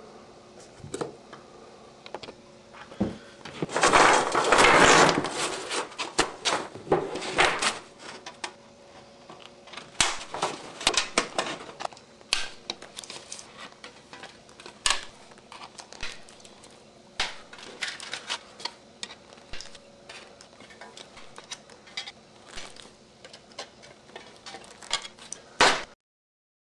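Thin metal sheets being handled and cut: irregular crinkling clicks and clatters, with a longer rustling crinkle about four seconds in and another about seven seconds in. The sound stops abruptly near the end.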